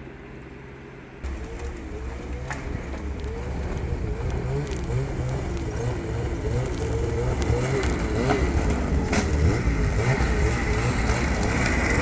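Snowmobile engine running, its pitch wavering up and down with the throttle and getting steadily louder as it comes closer. There are a few sharp knocks along the way.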